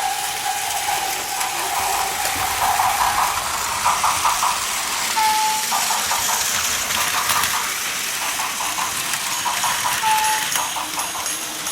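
Plarail toy trains running on plastic track, with a steady rattle of wheels and motors and clusters of clicking. Two short electronic tones sound about five and ten seconds in.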